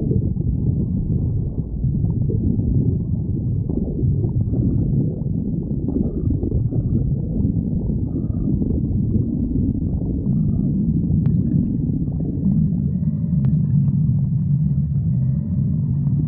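A hungry stomach growling, recorded close up: a continuous low rumbling and gurgling that settles into a steadier low-pitched drone in the second half.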